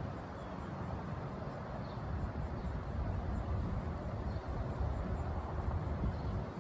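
Steady low rumble of a car's road and engine noise while driving.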